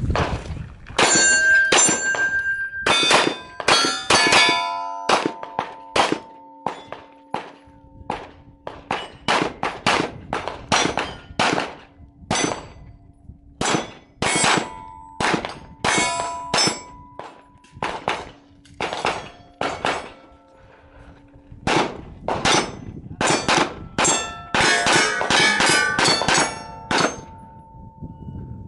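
Rapid strings of 9 mm pistol shots, a Canik TP9 SFx, fired at steel targets, with the plates ringing out with a clang after the hits. The fastest, densest strings come near the start and again near the end.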